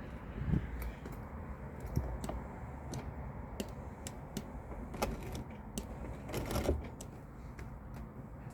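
Scattered light clicks and small rattles, about a dozen spread irregularly, from parts being handled during electrical troubleshooting, over a low steady rumble.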